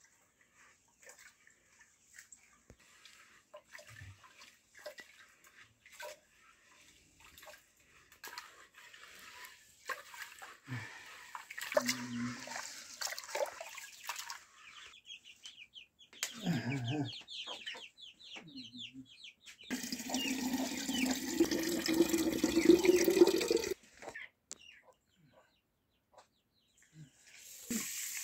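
Scattered clicks and knocks of household work. Then, about twenty seconds in, water pours into a vessel for nearly four seconds, rising in pitch as it fills.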